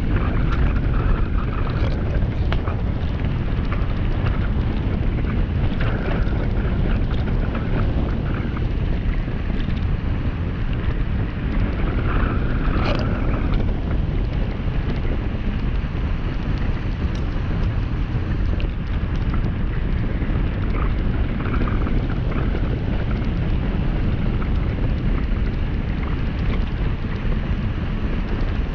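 Wind buffeting the microphone over the rumble of tyres rolling on a gravel mountain road during a descent at about 30 km/h, with scattered crunches and clicks from loose stones. A brief louder rattle comes about halfway through.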